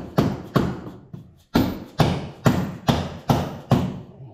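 Mallet blows on the steel transmission crossmember from below, about ten hard strikes at roughly two a second with a short break about a second in, knocking at a crossmember that is jammed tight in the frame.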